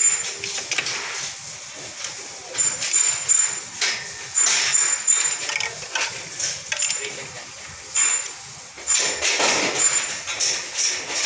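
Socket ratchet with a long extension clicking in short bursts as it turns a bolt, with clinks of metal tools in a car's engine bay.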